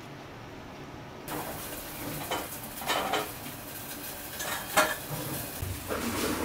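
Food dropped into hot oil starts sizzling suddenly about a second in and keeps sizzling while it is stirred, with several sharp clanks of a metal utensil against the pan, the loudest about five seconds in.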